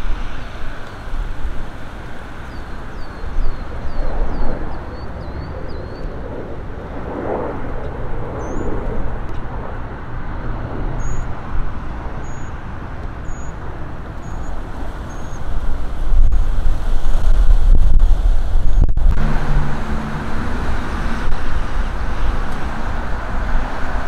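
Road traffic on a busy multi-lane street: cars and trucks driving past in a steady rumble. It gets louder for a few seconds about two-thirds of the way through.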